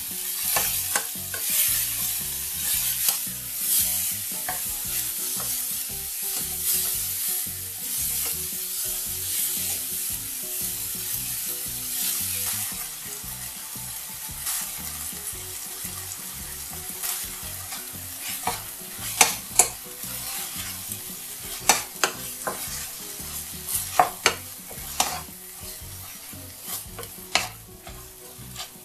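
Tomato wedges and green onion sizzling in a nonstick frying pan while being stirred with a wooden spatula. The sizzle is quieter after about halfway. In the second half there are a number of sharp knocks of the spatula against the pan.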